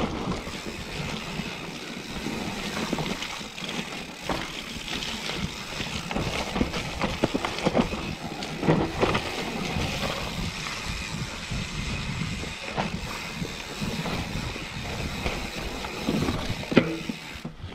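Mountain bike riding fast down a dirt forest trail: tyres running over the ground and the bike rattling, with frequent sharp knocks over bumps and roots, and wind on the microphone.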